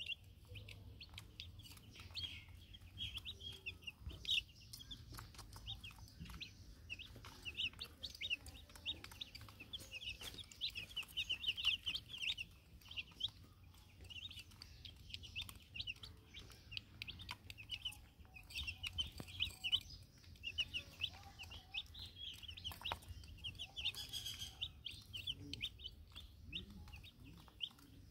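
A flock of domestic chicken chicks peeping nonstop: many short, high chirps overlapping one another.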